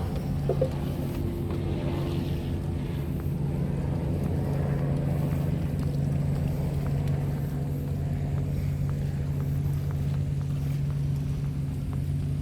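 An engine running steadily: an even, low hum holding one pitch throughout, with a few faint ticks over it.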